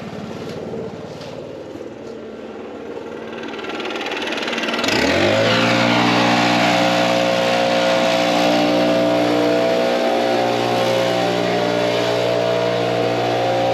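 Vehicle engine that rises in pitch about five seconds in and then runs at a steady pitch, with a steady rushing noise over it.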